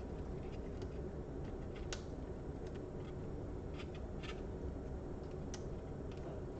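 Light, scattered clicks and taps from small laptop parts and tools being handled, over a steady low hum.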